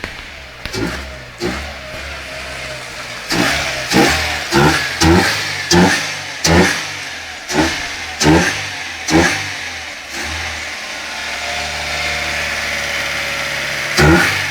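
Chevrolet Corsa 1.0 VHC engine with a sport single-flow air filter, loud under a quick series of short throttle blips, about a dozen in the first nine seconds. It then settles to a steady idle, with one more blip near the end.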